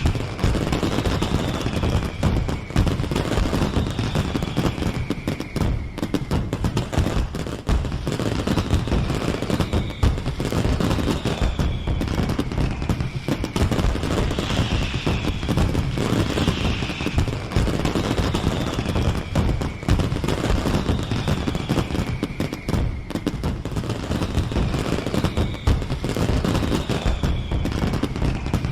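Fireworks display: a continuous dense barrage of bangs and crackling, with falling whistles repeating every second or two.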